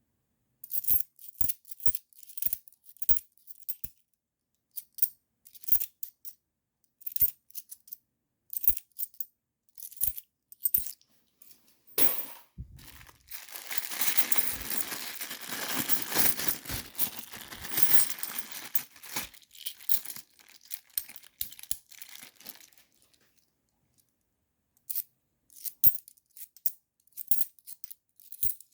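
50p coins clinking as they are handled and set down one at a time, in short sharp clicks. About twelve seconds in, a continuous rustling, tearing noise takes over for about ten seconds, then the separate coin clicks resume near the end.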